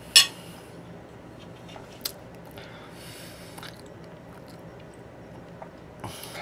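A person eating close to the microphone: a sharp, loud crunch just after the start, a smaller click about two seconds in, and breathy noises, over a faint steady hum.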